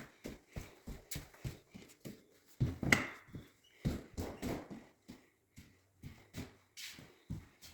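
Irregular knocks and thumps, a few a second, in a small room, with the loudest knock about three seconds in.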